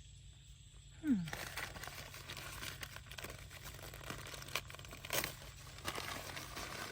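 Brown paper fruit bag crinkling and rustling as it is handled around a mango on the tree, starting about a second in.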